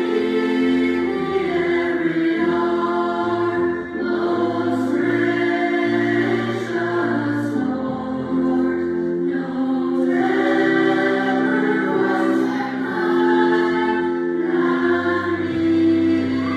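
Choir singing a slow song in several parts, with long held chords.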